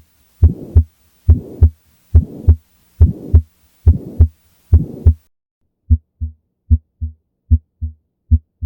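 Recorded heart sounds, paired lub-dub beats at about 70 a minute. For the first five seconds or so, a noisy systolic murmur fills the gap between the first and second sound of each beat: the murmur of pulmonary valve stenosis. After a brief break, normal heart sounds follow, clean lub-dub beats with nothing between them.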